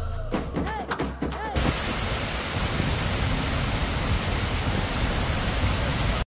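Water pouring down a tall wall fountain: a steady, even rush of falling water that starts suddenly about a second and a half in, after a short stretch of voice from a film clip.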